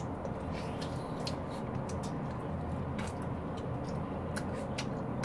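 Two people chewing juicy fresh pineapple, with many short wet mouth clicks and smacks scattered through, over a steady low room rumble.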